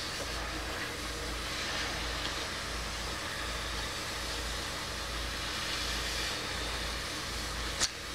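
Steady background hiss with a low hum underneath, and a single light click near the end.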